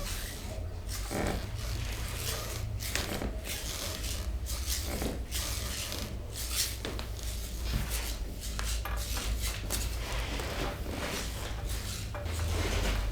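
Hands rubbing and kneading over skin in a series of irregular friction strokes, over a steady low hum.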